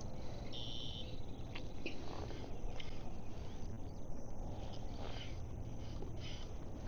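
Wind rumbling steadily on the microphone, with a brief high chirp just over half a second in.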